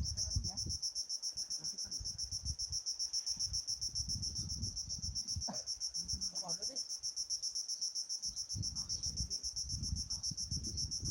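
Steady, high-pitched chorus of crickets with a fast, even pulse, with irregular low rumbles on the microphone underneath.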